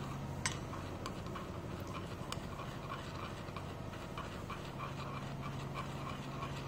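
Faint, steady low hum with light, irregular ticks and clicks from a glass rod stirring stearic acid as it melts in a porcelain dish set on a water bath.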